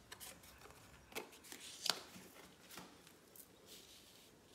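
Faint taps and rustles of handmade paper cards being picked up and laid down on a cloth-covered table, with the sharpest tap about two seconds in.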